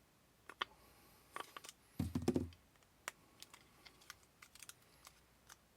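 Light, irregular clicks and scrapes of a tool working a tight wooden grip panel loose from a SIG P210 pistol frame, with one dull thump about two seconds in.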